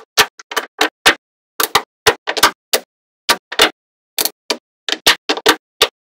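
Small magnetic balls clicking and snapping against each other as they are handled: a quick, uneven run of sharp, separate clicks, some in pairs and threes.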